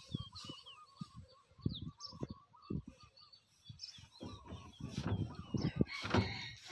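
Birds chirping in short repeated calls and quick falling whistles, over low thumps and rustling that grow louder and denser from about four seconds in.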